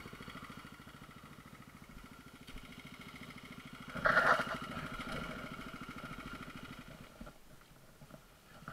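Trail motorcycle's single-cylinder four-stroke engine running with a steady, fast pulsing beat. It gets louder in a brief burst about four seconds in, then dies down over the last couple of seconds.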